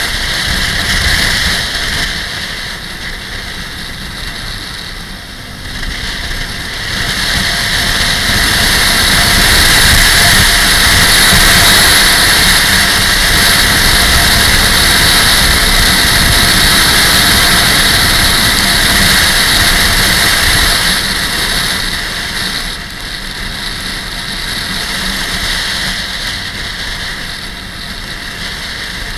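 Motorcycle engine running under way on the road, largely buried in wind rushing over the microphone. The wind grows louder about seven seconds in and eases again after about twenty-one seconds.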